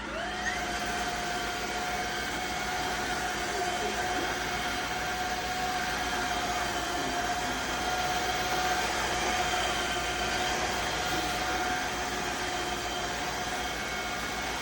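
Tineco Floor ONE S7 Pro cordless wet-dry vacuum's motor spinning up just after switch-on, then running steadily in auto mode: a steady whine over an even rush of air.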